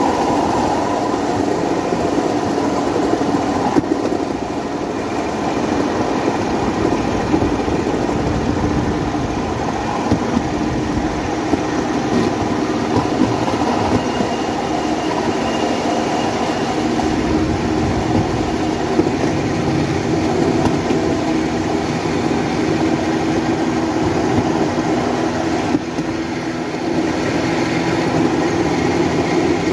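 A motorodillo, a handmade rail trolley driven by a motorcycle engine, running steadily along the track, its engine sounding over the rumble of its rollers on the rails.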